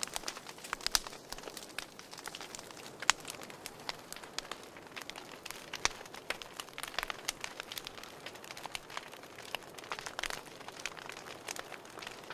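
Faint, irregular crackling: scattered sharp clicks and ticks at uneven intervals over a low hiss.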